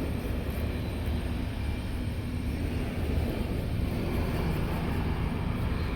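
Steady low rumble of an airplane's engines as it makes a low pass over the runway.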